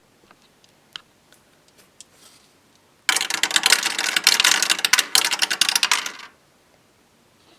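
Dice clattering down through a 3D-printed PLA dice tower: a dense run of rapid irregular clicks that starts about three seconds in and lasts about three seconds. It comes after a few light, scattered clicks.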